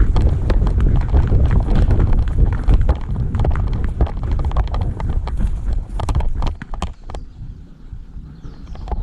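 Footsteps of a person moving quickly over rough ground: many short knocks and clicks over a heavy low rumble. The steps and rumble ease off about six or seven seconds in.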